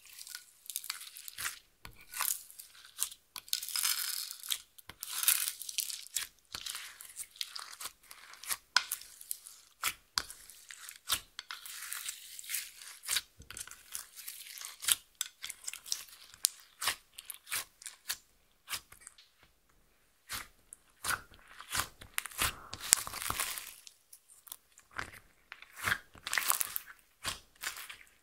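Clear slime loaded with glitter and sequins being kneaded, folded and stretched by hand: dense, irregular sticky crackles and squelches, with a short pause a little past the middle.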